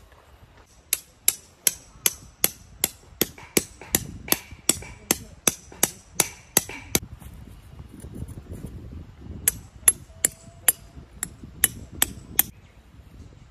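Hammer driving tent pegs into gravel ground: a run of about sixteen sharp strikes at two or three a second, each with a short metallic ring. After a pause of about two seconds come six more strikes.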